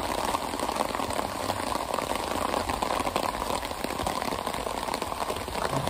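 Steady rain falling on a hammock tarp overhead, a dense, even patter of drops.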